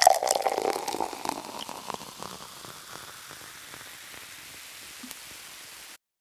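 A crackling burst of noise that fades over about two seconds into a steady hiss, which cuts off suddenly near the end.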